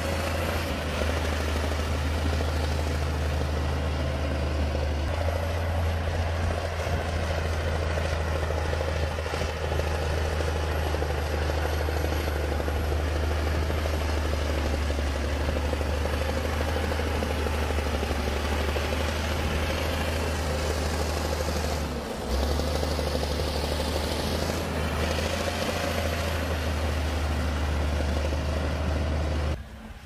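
Bulldozer's diesel engine running with a steady low drone, dipping briefly about two-thirds of the way through and dropping off suddenly near the end.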